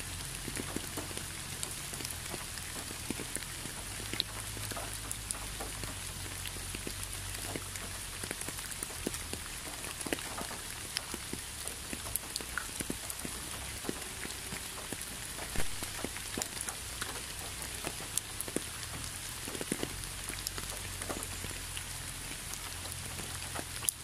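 Steady rain falling, with many separate drops ticking close by over an even hiss, and a faint low rumble underneath.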